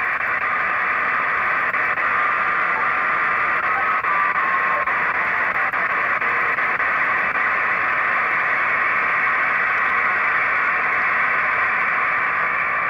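Shortwave receiver static hissing steadily from a software-defined radio receiver as it is tuned down to 10 MHz, with a faint whistling tone between about two and five seconds in.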